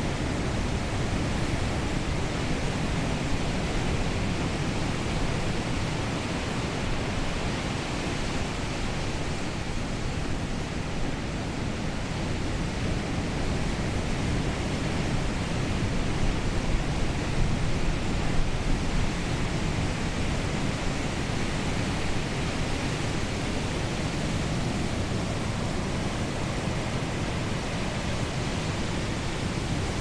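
Ocean surf breaking and washing on a beach, a steady rushing wash of waves that swells a little louder about halfway.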